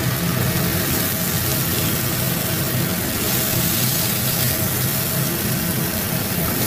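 Tofu in sauce sizzling steadily in a hot wok while it is stirred and scooped out, with a steady low hum underneath.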